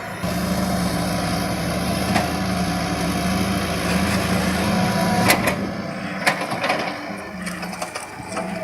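Backhoe engine running steadily, with a few sharp knocks or clanks between about five and seven seconds in.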